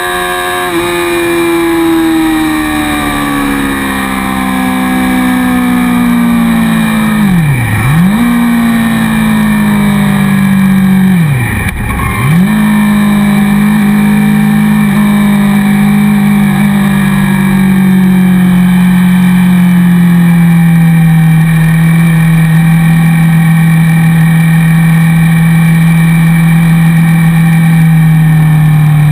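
Motorcycle engine running at speed, heard from the bike itself over wind rush. Its note falls slowly, and twice, about a third of the way in and again some four seconds later, it drops sharply and comes straight back.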